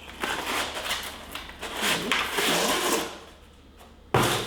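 Cardboard box and packaging being handled and opened: rustling and scraping with many small clicks, then a sharp knock about four seconds in.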